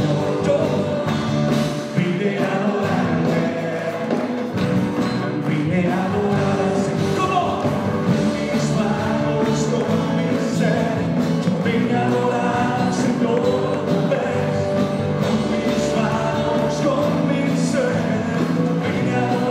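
Live church worship band: several singers on microphones sing a praise song together over acoustic and electric guitars.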